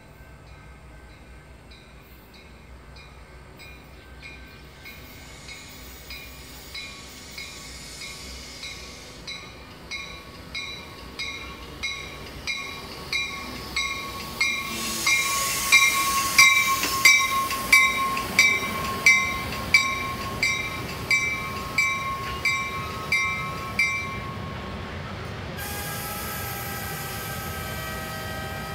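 Metra commuter train arriving at the station, its bell ringing about one and a half strikes a second and growing louder as it approaches, with a steady brake squeal under it as the train slows. The bell stops as the train comes to a halt, and a steady hum of several tones follows near the end.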